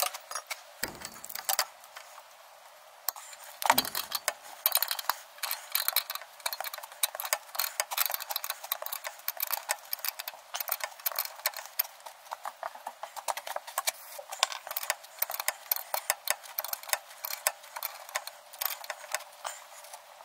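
Ratcheting spanner clicking in quick, uneven runs while turning the top mounting nut of a worn front shock absorber, with a couple of metal knocks in the first few seconds.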